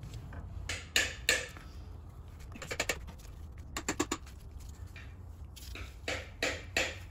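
Gloved hands working a rubber steering-rack dust boot back over a Mustang's inner tie rod: scattered short rubbing and clicking sounds, in small clusters, over a low steady hum.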